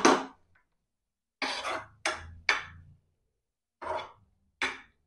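Steel spoon scraping and stirring sweet corn kernels in a non-stick frying pan: about five short scrapes, each under half a second.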